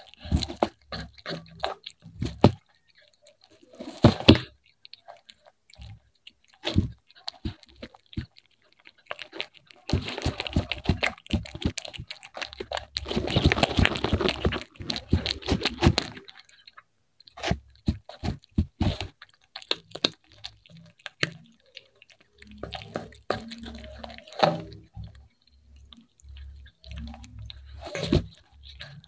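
Cat chewing and crunching fried fish close to the microphone, crisp skin and small bones cracking between its teeth. It comes in irregular bursts with short pauses, and the densest crunching runs from about ten to sixteen seconds in.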